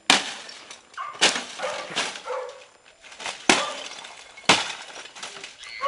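Sharp cracking impacts roughly once a second on the wreckage of a smashed television, each with a crunch of breaking plastic casing and glass shards.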